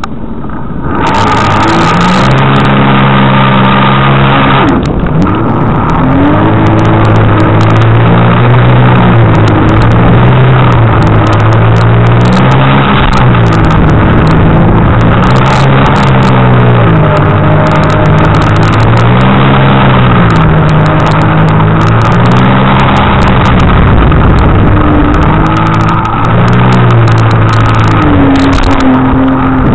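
Jet ski engine running at speed close to the microphone, its pitch rising and falling over and over as the throttle is worked, over the rush of water and spray from the hull.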